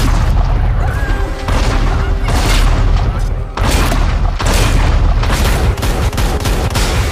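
Film action sound effects: a rapid string of heavy booming impacts and crashes, with music underneath.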